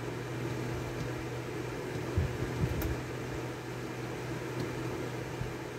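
Steady hum of a running electric fan, with a few faint clicks as the digital alarm clock's buttons are pressed.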